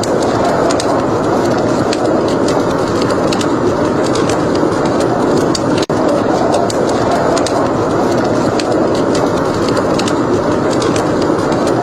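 Wood fire crackling: frequent sharp pops and snaps over a steady rushing noise, with a momentary dropout about six seconds in.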